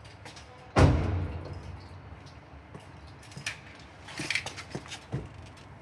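Jeep Wrangler JK giving a single loud pop about a second in, a sharp knock that dies away over about a second, followed by a few faint clicks.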